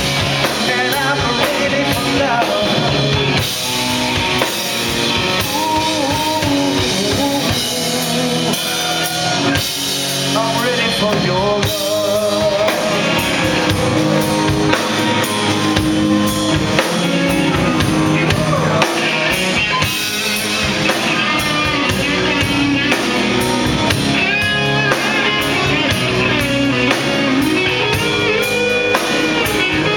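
A live rock band playing: electric guitar, electric bass and drum kit, with a male lead vocal.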